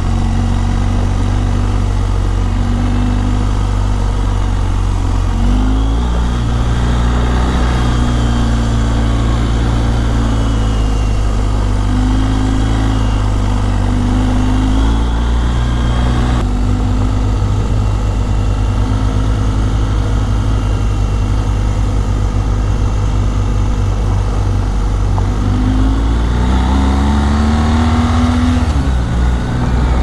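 A BMW GS motorcycle's flat-twin engine running while the bike is ridden along a road. The engine pitch dips and climbs again about six seconds in and again near the end.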